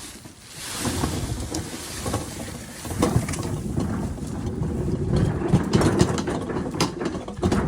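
A refrigerator being wheeled along the ground: a steady low rumble of the wheels with many rattles and knocks, busier in the second half.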